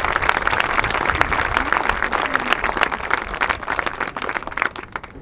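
Crowd applauding, the clapping thinning out and dying away near the end.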